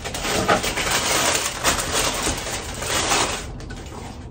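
Paper crinkling and rustling as packing paper is pulled and handled inside a new sneaker, dense and crackly, dying down after about three and a half seconds.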